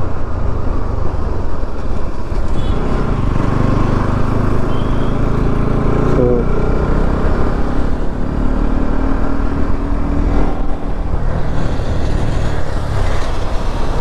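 A 200 cc single-cylinder sport motorcycle running under way, its engine note climbing a couple of times as it accelerates, with wind rushing over the on-bike microphone.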